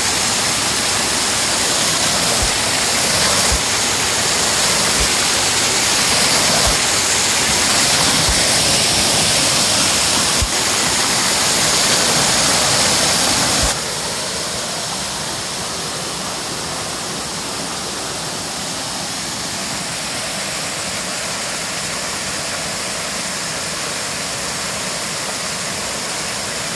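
Small waterfall pouring over a rock ledge into a pool: a steady, dense rush of falling and splashing water. It is louder at first and drops suddenly to a softer rush about halfway through.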